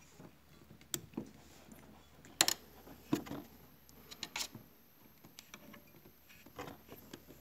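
Handling noise from multimeter test leads and an alligator clip being moved on a compressor's metal terminal pins: a scatter of short clicks and light rustles, the sharpest about two and a half seconds in.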